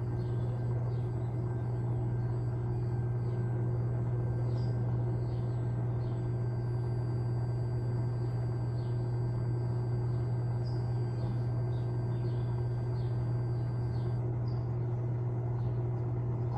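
Electrolux LTA15 top-loading washing machine running with a steady low hum, with faint short chirps scattered over it.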